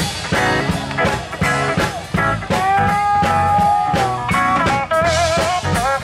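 Live sacred steel gospel band: a steel guitar holds a long sliding note, then plays wavering notes with vibrato, over drums, bass and electric guitar.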